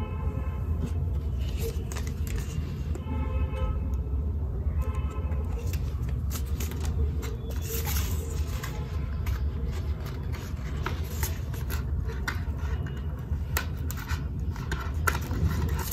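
Hands handling small items and packaging: scattered light clicks and rustles over a steady low hum.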